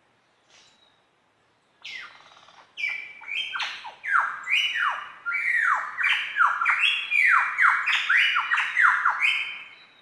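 Superb lyrebird singing: a fast, loud run of whistled notes that each slide down in pitch, beginning about two seconds in and stopping just before the end.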